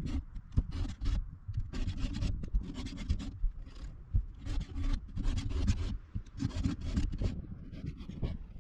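Round chainsaw file rasping across the cutter teeth of a Stihl 036 saw chain in repeated hand strokes, about one or two a second: the chain being sharpened by hand.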